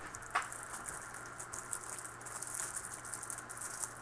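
Faint rustling and light clicking from a trading card and rigid plastic top-loader holders being handled, with one sharper click about a third of a second in.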